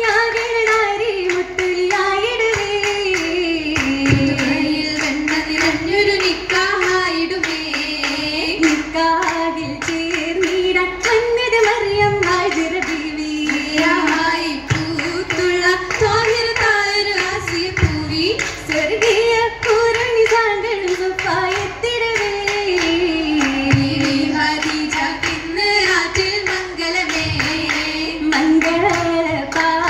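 Oppana song (Mappila pattu) sung in unison by female voices, with many hand claps from the dancers through the singing.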